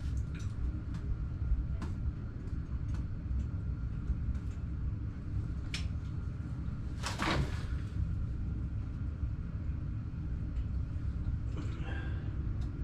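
Hands-on work with a caulk gun and an aluminium shower door rail: scattered light clicks and knocks, and one louder short scraping rustle about seven seconds in, over a steady low hum.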